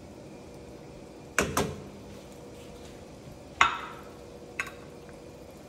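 Cookware and utensils knocking in a kitchen: two quick clacks, then a louder clink with a short ring about two seconds later and a lighter tap, over a faint steady hum.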